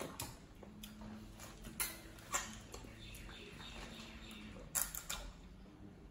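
Eating sounds from a seafood boil meal: chewing and mouth smacks with a few sharp, irregular clicks, the loudest around two seconds in and near five seconds, over a faint steady hum.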